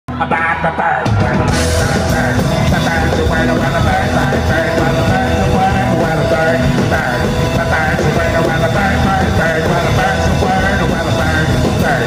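Live surf rock band playing loudly, with electric guitars and a drum kit.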